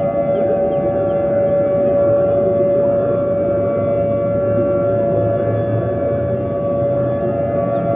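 Outdoor warning siren sounding a steady, held tone made of several pitches, with a noisy rumble beneath it.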